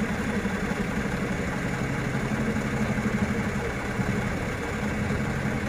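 Truck engine idling steadily, a low, even pulsing rumble.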